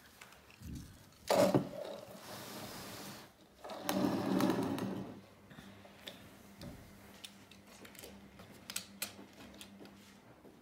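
Small die-cast toy cars handled on a wooden tabletop: a knock about a second in, two stretches of rolling rumble, the second louder, then scattered light clicks as cars are set down.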